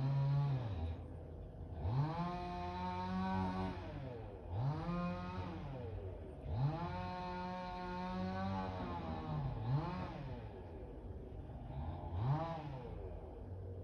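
Chainsaw engine revved up and let back down to idle over and over: a rev dies away about a second in, then come three longer revs of a second or two each and two short blips near the end, with the engine idling between them.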